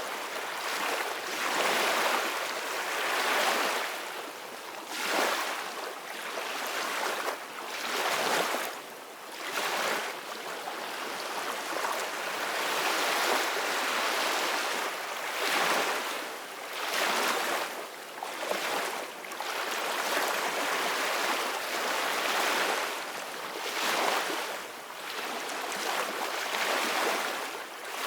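Sea waves washing and splashing, a steady rush that swells and falls back in uneven surges every second or two.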